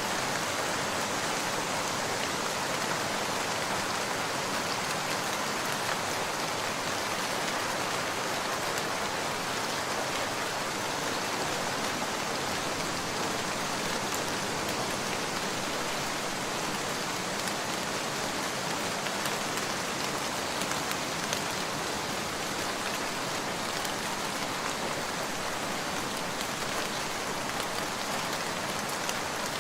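Steady rain falling, an even, unbroken hiss of drops with no thunder.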